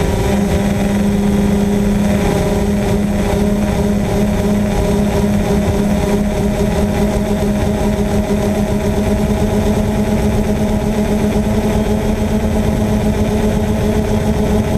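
DJI Phantom quadcopter's motors and propellers running in flight, picked up by the camera mounted on it: a loud, steady hum holding one pitch with several higher tones over it and a rough low rumble beneath.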